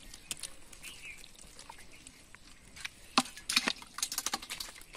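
A metal bowl scooping and splashing thin mud and water, with wet slaps and drips, the strokes coming thickest from about three seconds in.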